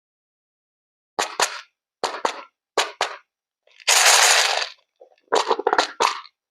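Sharp clicks and taps in three small clusters, then one hissing burst of about a second, then a quick run of clicks near the end.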